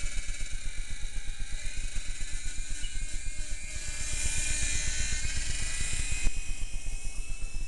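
Toy remote-control helicopter's small electric motor whining steadily, with the rotor setting up a fast, even fluttering pulse underneath. A short knock comes about six seconds in.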